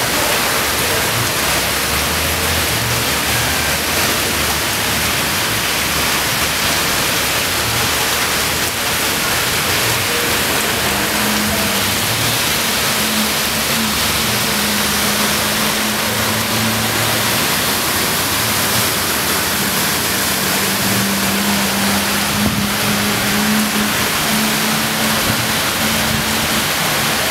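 Heavy rain pouring down in a steady, loud hiss. Midway a car's engine hum comes through the rain as the car drives along the flooded street.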